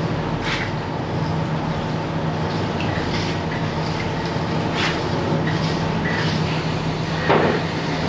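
Fishing boat's engine and pot hauler running with a steady hum while a cage rope is wound in. Occasional knocks and clatters sound on deck, the loudest about seven seconds in.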